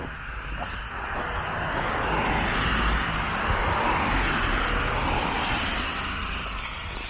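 A road vehicle passing by, its tyre and engine noise swelling for a few seconds and then fading away.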